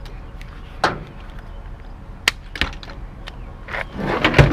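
A few separate sharp knocks and clicks of hard objects being handled, then a louder clatter of knocks near the end.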